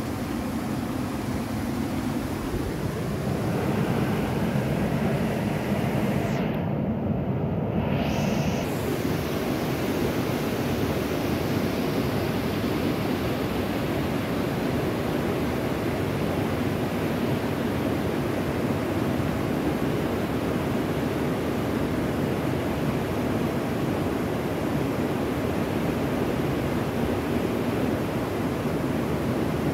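Steady outdoor rushing noise with no distinct events; the hiss in the upper range briefly drops away about seven seconds in.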